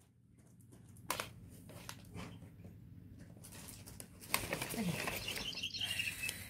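Crumpled brown kraft packing paper rustling and crinkling as kittens paw at it and move through it, with a few sharper crackles about a second in and again past four seconds.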